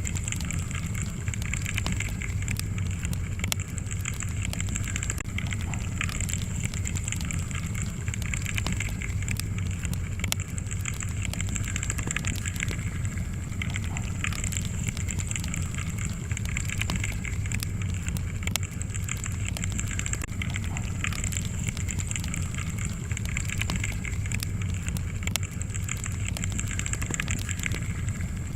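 Wood fire crackling steadily in a fireplace: many small, irregular pops and snaps over a low, steady rumble of flame.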